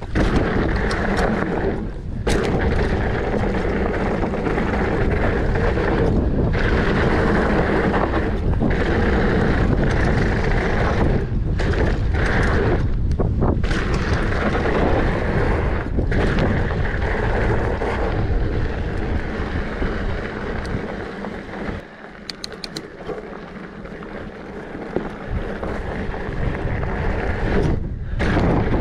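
Wind buffeting the camera microphone over the rumble of 27.5-plus mountain bike tyres rolling fast down a gravelly dirt trail. The noise dips briefly several times and eases off for a few seconds about three-quarters of the way through.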